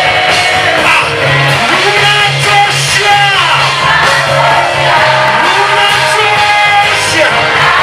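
Gospel praise song sung by a group of voices over a band, with a steady low bass line and percussion.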